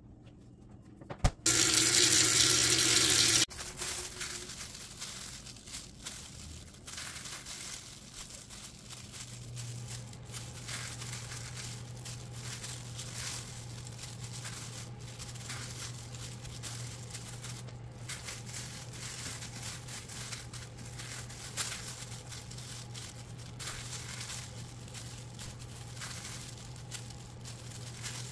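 Plastic-gloved hands handling wet marinated meat and pushing it onto bamboo skewers: soft plastic crinkling and squishing over a steady low hum. Near the start, a loud burst of rushing noise with a buzz lasts about two seconds and cuts off sharply.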